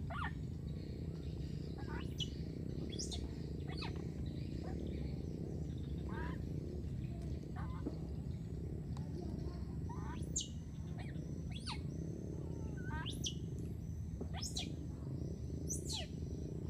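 Short, high-pitched chirping calls, sweeping steeply in pitch and coming about once every second or so, over a steady low rumble.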